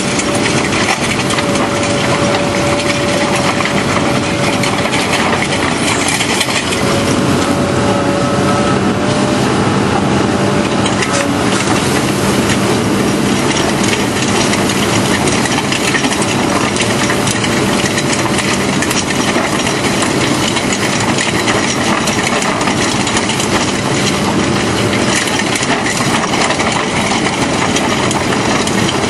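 Excavator-mounted hydraulic drum cutter grinding into rock: a continuous dense crunching and clattering of the cutting drum against stone, with the excavator's engine running underneath as a low steady hum.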